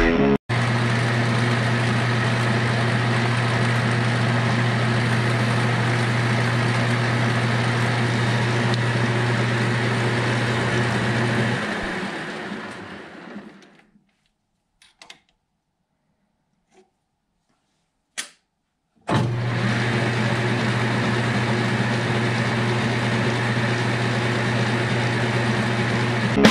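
Summit metal lathe running while turning down a steel bar: a steady motor hum under cutting noise. About twelve seconds in it is switched off and the spindle winds down to near silence, with a few small clicks. About nineteen seconds in it starts up again abruptly.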